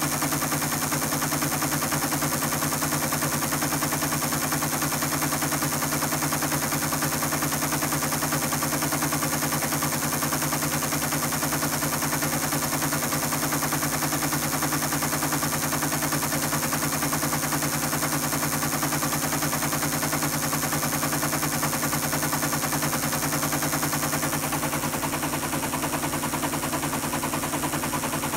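ASR-33 Teletype's paper tape reader clattering rapidly and steadily as it reads a punched tape, over the steady hum of the Teletype's motor.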